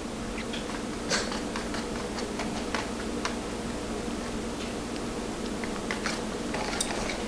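Wire whisk beating crepe batter in a plastic mixing bowl, its wires clicking against the bowl in a quick irregular run, several clicks a second, fewer in the middle.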